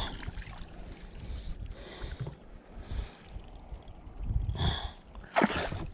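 Water sloshing and splashing around a kayak hull, in a few short surges, while a bass is played to the boat.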